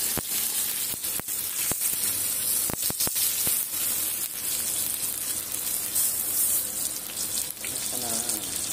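Butter sizzling as it melts on a preheated oval sizzling plate: a steady hiss with scattered sharp spatter pops, most of them in the first few seconds.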